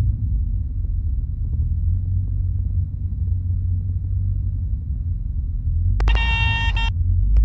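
Cessna P172D's engine droning steadily, heard from inside the cabin, with the stall warning horn sounding near the end in a short, high tone that cuts out after about a second and starts again as the plane flares to land.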